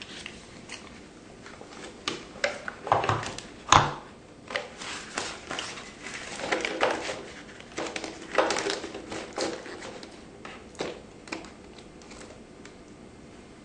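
Handling noise of a label roll and its plastic spindle being seated in a thermal transfer label printer: scattered plastic clicks and knocks, with paper rustling as the label strip is pulled through the guides. The loudest knock comes about four seconds in, and it goes quieter near the end.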